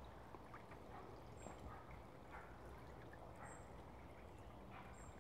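Very faint trickle of a shallow stream running over stones, barely above silence.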